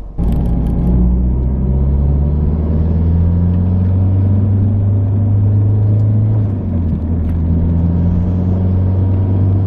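Mazdaspeed 3's 2.3-litre turbocharged four-cylinder running under way at a steady drone. The engine note climbs slowly, drops about two-thirds of the way through, then carries on.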